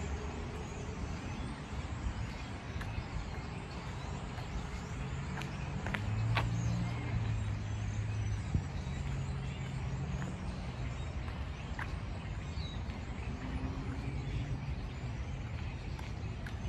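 Steady low rumble of distant road traffic, swelling a little about six seconds in, with a few faint clicks.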